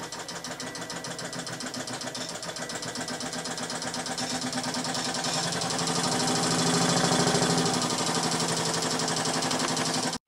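Montgomery Ward Supreme Reversible Rotary sewing machine running under power, its semi-built-in motor driving the hand wheel through a rubber friction drive wheel. A fast, even mechanical rhythm grows louder over the first several seconds, holds steady, then cuts off suddenly near the end.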